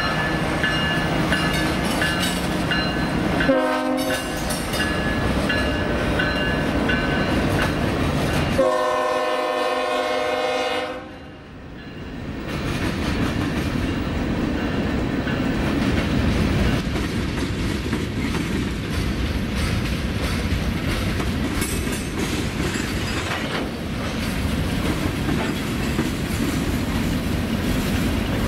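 A CSX diesel locomotive's air horn sounds a brief note a few seconds in, then a longer blast of about two seconds, over engine noise. After that the train rolls past with a steady rumble of wheels on the rails.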